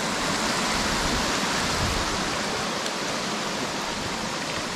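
Waterfall: a steady rush of falling water, an even hiss.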